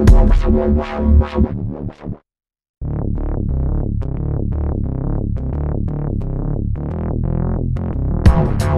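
Background electronic music. It breaks off into a brief silence about two seconds in, returns as a softer passage of separate synthesizer notes, and the fuller, louder track comes back near the end.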